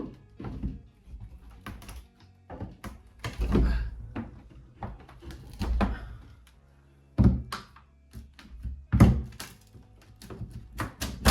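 Irregular wooden knocks and thuds as an old, long-shut door behind a cupboard is pushed and forced, the door held fast by something behind it, with background music underneath.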